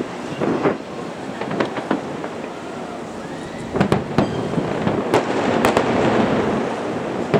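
Aerial fireworks exploding: a string of sharp bangs at uneven intervals over a continuous rumble and crackle that swells near the end.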